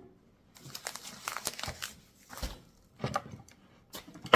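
Plastic packaging crinkling and rustling in bursts as parts are unwrapped and handled, with one sharp knock near the end.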